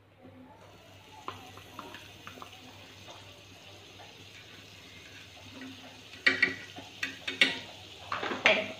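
Butter sizzling as it melts and foams on a hot tawa, with a knife scraping and knocking against the pan several times in the last few seconds.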